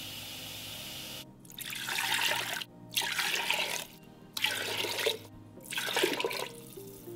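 Kitchen faucet running briefly into a soup bowl, then four bowlfuls of water poured one after another into a ceramic clay soup pot, each a splashing pour about a second long.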